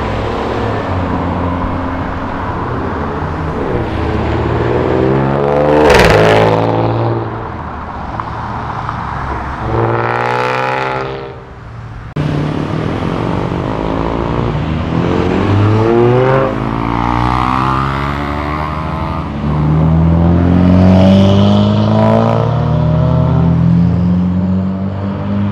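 Several cars accelerating away one after another, their engine notes rising in pitch as they rev up. The loudest passes about six seconds in, and the sound cuts off suddenly about twelve seconds in before more cars pull away.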